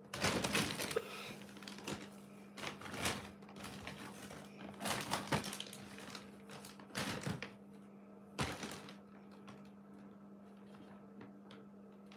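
Clear plastic bag rustling and crinkling in five separate bursts, the first and longest at the start, as it is moved about beside a cat.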